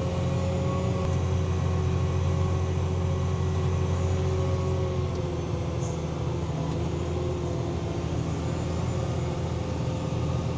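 A large John Deere tractor's diesel engine runs steadily while towing an air seeder. It is a constant low drone with a faint steady whine above it, and the engine note eases down slightly about halfway through.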